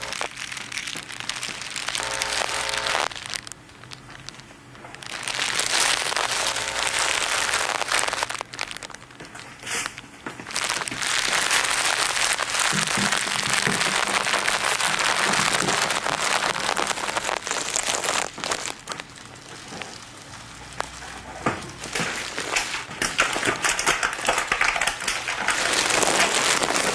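Plastic and paper packaging being crumpled and crinkled by hand as an improvised sound performance: long stretches of dense crackling, broken by two short pauses.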